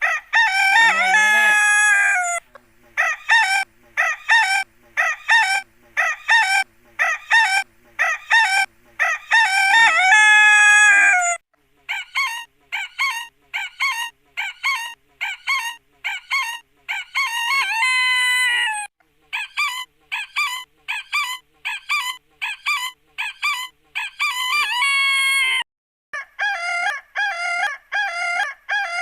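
Chicken calling: runs of short, sharp clucks about two a second, each run ending in a long drawn-out call, the pattern repeating four times.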